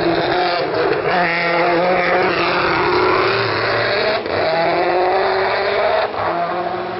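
Race car engine on an Audi TT-bodied hillclimb racer accelerating hard as the car passes and pulls away. The pitch climbs repeatedly, with short breaks at upshifts about one, four and six seconds in.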